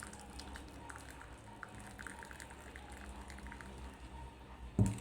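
Thyme tisane being poured into a glass, dripping and trickling in short drops over the first couple of seconds, then a single brief low thump near the end.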